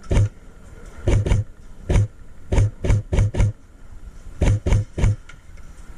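Airsoft gun firing quick semi-automatic shots in irregular strings of two to four, each a sharp thump with a crack.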